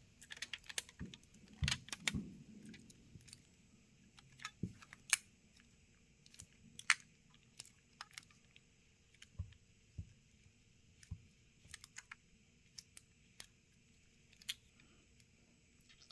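Scattered light clicks and taps at irregular intervals from hands handling a smartphone while rubber bands are fitted around it to hold the new screen in place.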